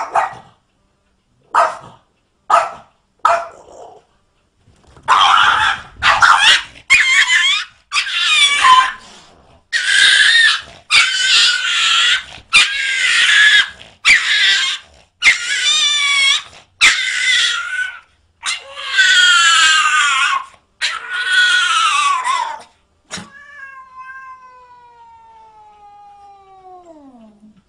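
A small dog barks four times. Then a cat yowls in a long run of wavering calls. It ends in one long yowl that falls steadily in pitch.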